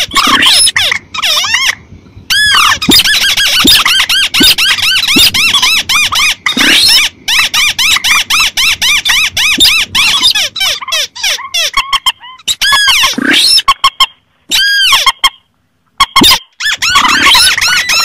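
Recorded lure calls of rails and crakes (mandar, tikusan and sintar), mixed together: fast runs of shrill squealing, chattering notes, each rising and falling, many a second. They break off briefly several times, with about a second of silence roughly three-quarters of the way through.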